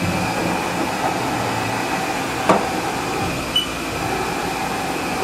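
2002 Haas Super MiniMill's X-axis servo drive and ballscrew moving the table at a raised feed rate: a steady mechanical hum and whine, with one sharp click about halfway through.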